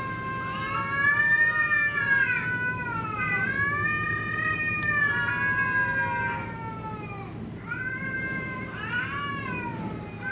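Two stray cats caterwauling at each other in a standoff: long, drawn-out yowls that waver up and down in pitch and swell and fade for several seconds each. After a brief lull near the end they turn into shorter, bending calls.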